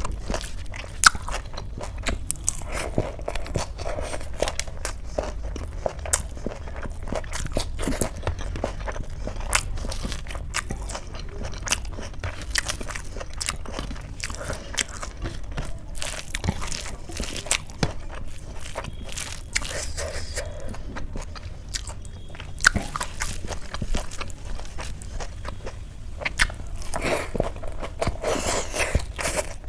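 A person chewing and crunching food, with a steady run of small irregular clicks, crackles and mouth sounds.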